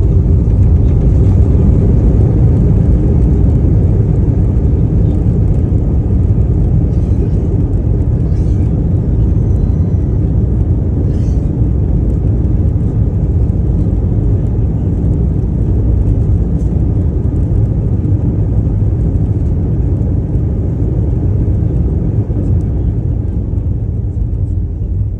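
Airliner cabin noise: a loud, steady low rumble of engines and airflow, easing slightly toward the end.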